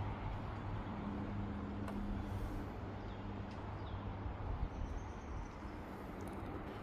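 Outdoor background noise: a steady low hum under an even hiss, with a couple of faint high chirps about three and a half seconds in.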